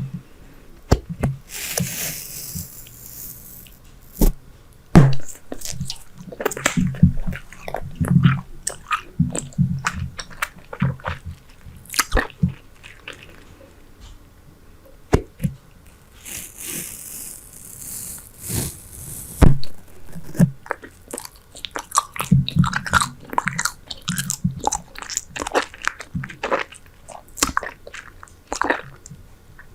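Close-miked chewing of Super Bubble bubble gum: wet smacking with many sharp clicks and snaps. Twice, a stretch of airy hiss of two to three seconds, the first about two seconds in and the second past the middle.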